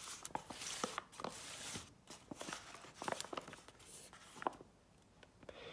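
Rustling, scraping and light knocks of a cardboard firework barrage cake being handled, with scattered clicks, busiest in the first two seconds and dying away near the end.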